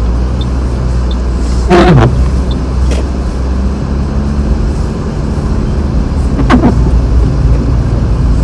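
Car on studded winter tyres being driven on a snowy road, heard from inside: a steady low rumble of engine and road noise. Two brief sharp sounds cut through, about two seconds in and again about six and a half seconds in.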